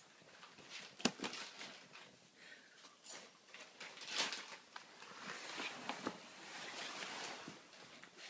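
Rustling and scuffing of a fabric pop-up pet tunnel as the animal moves about inside it, with a sharp click about a second in and a longer stretch of rustling in the second half.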